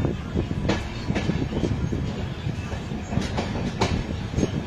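Passenger train running, heard from the side of a moving coach: a steady rumble of wheels on rail, with a few sharp, irregular clicks as the wheels pass over joints in the track.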